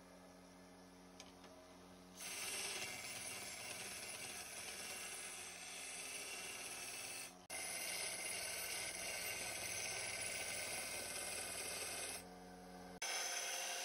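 Narrow belt sander running, with cleaver steel pressed against the moving belt and ground in a steady, even grinding noise. The grinding starts about two seconds in, stops briefly about halfway through and again near the end, leaving only the motor's hum in between.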